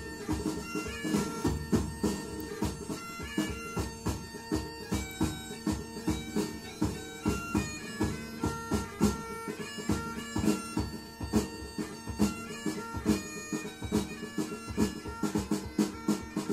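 Bagpipe funk-rock record playing on a turntable: a bagpipe melody over a steady drum beat.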